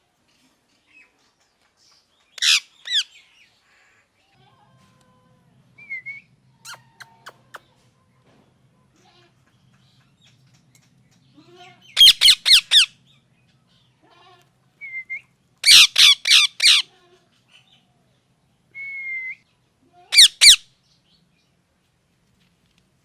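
Pet parrot squawking in short bursts of several rapid harsh notes, three bursts in the second half, with a few soft short whistles in between.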